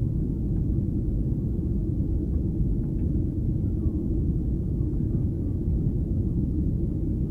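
Steady low rumble inside the passenger cabin of a Boeing 737-800 in flight: the noise of its CFM56 jet engines and the airflow over the fuselage, unchanging.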